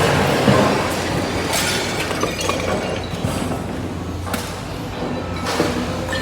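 Heavy equipment running at a transfer station while dumped junk is shoved and scraped, with a steady low engine hum under continuous grinding and clattering. A few sharp knocks, about half a second in and again around four and five and a half seconds in.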